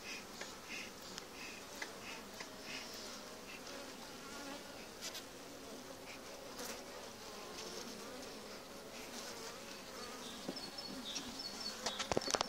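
Honeybees buzzing over an open hive: a steady hum that wavers in pitch. Near the end, a quick run of sharp clicks stands out as the loudest sound.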